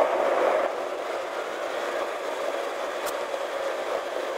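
Steady road and wind noise heard from inside a car driving on a snow-covered road, a slightly louder rush at first that then settles.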